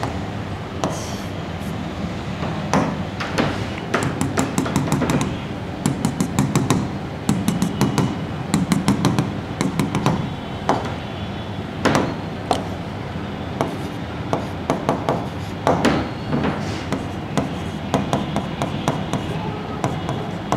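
Marker pen on a whiteboard: runs of quick, sharp taps as short dashes are dotted onto the board, with stroke sounds of writing between them.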